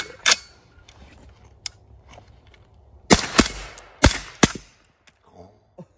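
Suppressed CMMG Dissent rifle in .300 Blackout firing. There are three pairs of sharp reports, each pair a fraction of a second apart. The first pair comes at the start, and the two heaviest pairs come about three seconds in and a second later.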